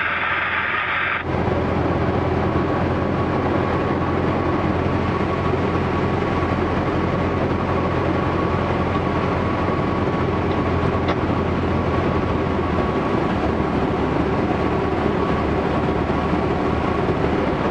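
Cessna 150's Continental O-200 four-cylinder engine and propeller droning steadily in flight, heard inside the cockpit, with a thin steady whine above it. In the first second a brief hiss is heard before it cuts to the engine sound.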